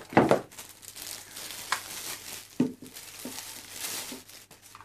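Clear plastic packaging bag crinkling and rustling in irregular bursts as a small aquarium filter is handled and pulled out of it, with a louder knock of the packaging just after the start.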